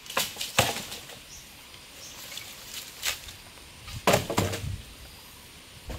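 Cut wooden poles knocking a few times as they are handled and set against the ground: two sharp knocks at the start, one near the middle and a quick cluster about four seconds in.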